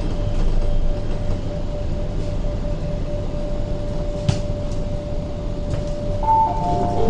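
MTR K-stock metro train rolling to a stop, heard from inside the car: a low rumble with one steady whine and a single clunk about four seconds in. Near the end the two-note door chime starts, signalling that the doors are about to open.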